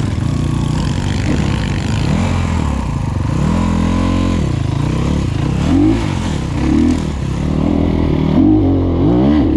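250 cc enduro dirt bike engines running. One bike drops and picks back up in pitch near the middle, then is revved in a series of short throttle blips through the second half.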